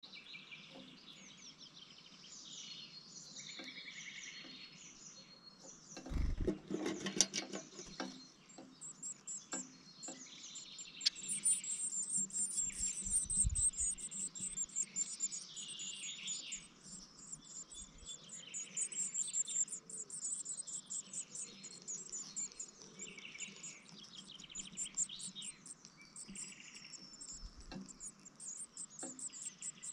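Blue tit nestlings begging inside a nestbox: a fast, very high-pitched cheeping chorus that starts soon after a parent arrives with food. About six seconds in, scraping and bumping as the adult enters the box.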